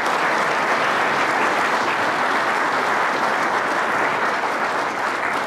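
Audience applauding: a dense, steady sound of many hands clapping.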